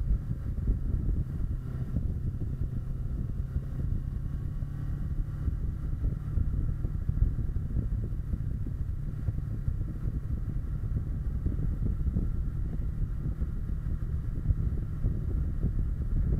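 Kawasaki Versys 650's parallel-twin engine running at a steady cruise, picked up by a bike-mounted camera, under a low rumble of wind on the microphone.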